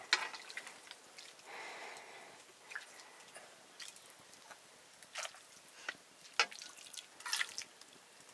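Light clicks and knocks of pots and utensils being handled while cooking, scattered and irregular, with a short soft rush of noise about a second and a half in.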